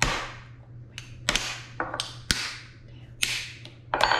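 Cooked stone crab claws being whacked open with the back of a butter knife and a spoon on a wooden cutting board: about five sharp cracks, each trailing off briefly, with lighter taps in between.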